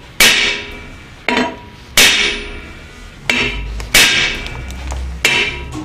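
Hammer rapping sharply on the end of a hub puller's forcing-screw stem, six metallic strikes about a second apart, each with a short ring. The raps jar the rusted brake drum and hub loose from the tapered axle shaft while the puller holds it under tension.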